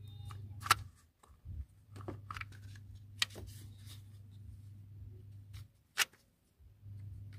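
Scattered sharp metallic clicks and taps of hand tools and timing-chain parts being handled on the engine. The two loudest clicks come just under a second in and about six seconds in.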